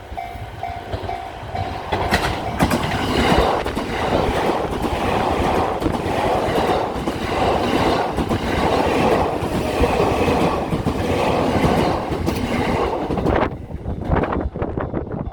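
Level-crossing warning bell ringing in a steady repeating pattern, then an electric passenger train passes over the crossing. A loud rush of wheels on rail, with rapid clickety-clack from the rail joints, sets in about two seconds in and lasts about eleven seconds before dropping away near the end.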